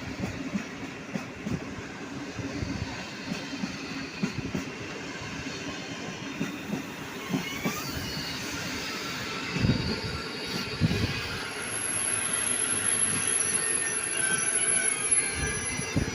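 A train moving along the tracks, its wheels knocking over rail joints and points, with squealing from the wheels on the rails in the second half.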